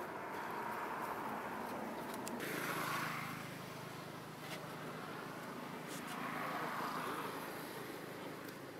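Outdoor background noise with motor vehicles passing in the distance: a hum that swells and fades twice, with a few faint clicks.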